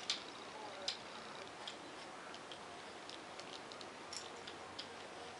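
Light, irregular plastic clicking and clacking from the hanging toys and plastic chain links of a baby play gym as a baby bats at them, the two sharpest clicks near the start and about a second in.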